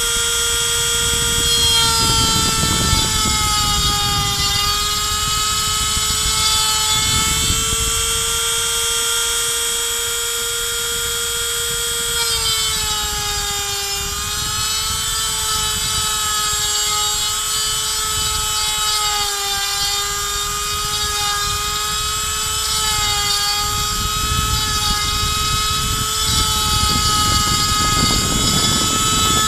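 A 135-watt handheld rotary tool, used as the spindle of a CNC router, runs with a steady high whine while its 3 mm bit cuts pine wood. Its pitch sags slightly a few times as the bit takes load, over a rough cutting noise.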